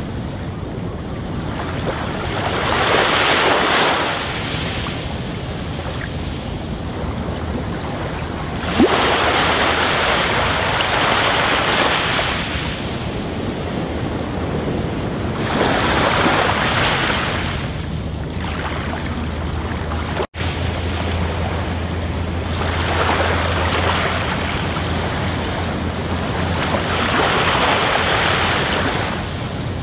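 Aquarium air stone bubbling: a steady rush of air and water that swells and eases every few seconds, over a low hum. The sound drops out for an instant about two-thirds of the way through.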